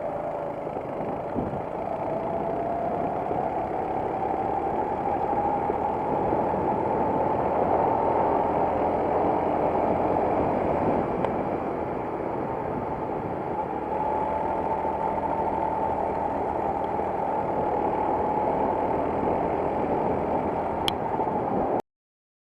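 Racing kart engine heard on board, running at speed with its pitch climbing over the first several seconds, easing off briefly, then climbing again. The sound cuts off suddenly near the end.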